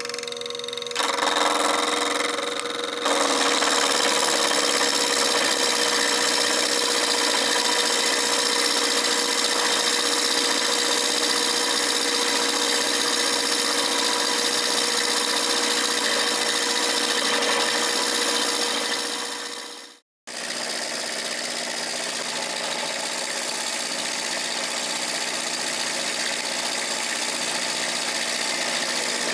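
Sherline mill's spindle running with an end mill taking a roughing cut in ground A2 tool steel: a steady cutting noise over a constant whine, getting louder about one and three seconds in as the cutter engages. It cuts off for an instant about twenty seconds in, then carries on a little quieter.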